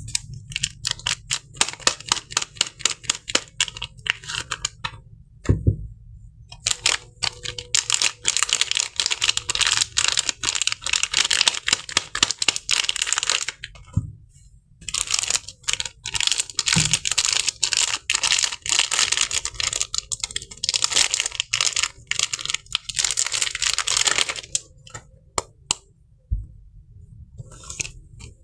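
Crisp paper wrapping of a soap bar being crinkled and torn: dense crackling in long stretches broken by a few short pauses, with a few soft low thuds.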